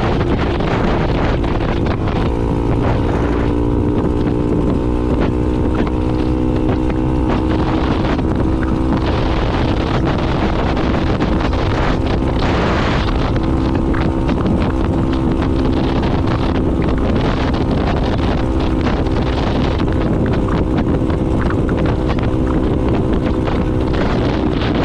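A 2022 Honda Navi's small 109 cc single-cylinder engine running at a steady cruising speed while the bike is ridden, its pitch holding nearly level. Heavy wind rushes over the microphone the whole time.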